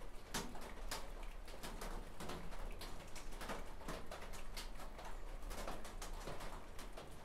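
Light, irregular taps and scrapes of an old paintbrush handle dabbing stiffened two-part epoxy onto an engine's oil pickup.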